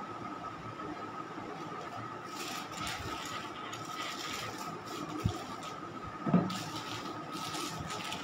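A spatula scraping cream into a plastic piping bag, with plastic rustling, in a few short scrapes and a couple of soft knocks a little past the middle. A steady faint high hum runs underneath.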